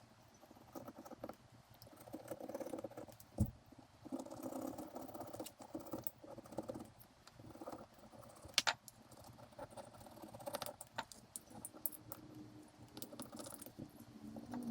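Old gasket being scraped off a carburetor body: faint, intermittent scratching with small clicks, and a couple of sharper taps.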